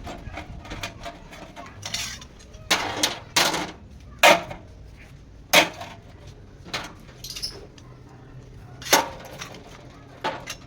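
Metal pieces clanking and knocking together in an irregular series of sharp hits, the loudest a little past four seconds in, about a second later, and near nine seconds.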